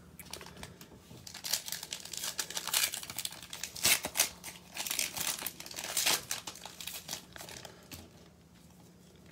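Crinkling and tearing of a 2021 Prizm baseball cello pack's plastic wrapper as it is ripped open by hand, in irregular crackly bursts that die away near the end.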